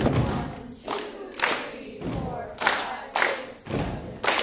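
A choir stomping and clapping a body-percussion rhythm, heavy stomps and claps about every half second, with voices singing along.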